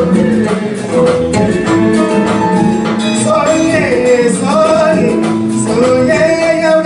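A live band playing a Latin-tinged groove, with congas, piano, saxophone and guitar, and a man singing over it.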